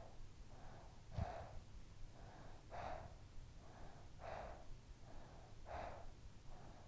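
A sleeping child breathing softly and evenly, each breath a faint rush of air, with about one full breath every second and a half.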